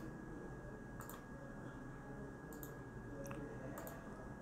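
Computer mouse clicking about half a dozen times, short and sharp, spaced irregularly over low steady background hiss.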